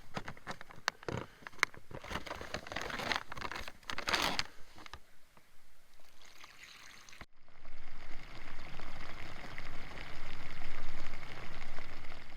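Packaging rustled and clicked for a few seconds, then water pouring steadily for about five seconds.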